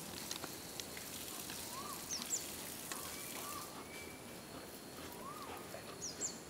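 Quiet outdoor ambience with a bird giving short whistled chirps several times, a quick high pair about two seconds in and again near the end. Scattered light clicks sound over it.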